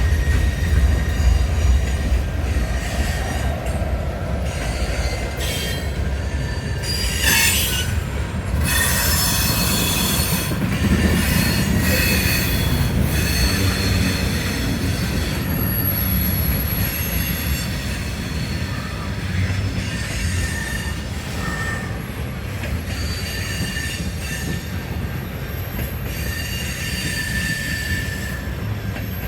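A train rolling by, its steel wheels squealing on the rails in shifting high-pitched tones over a steady low rumble.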